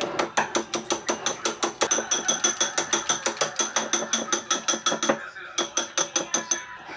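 Small wire whisk beating a thick batter in a ceramic bowl: rapid, even clicking strokes, about seven a second, with a faint ringing from the wires striking the bowl. The strokes stop briefly about five seconds in, then pick up again for a few more.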